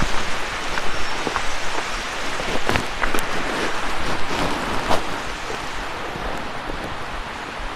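Footsteps through forest undergrowth, with a few scattered snaps and knocks over a steady rushing hiss that eases slightly about two-thirds of the way through.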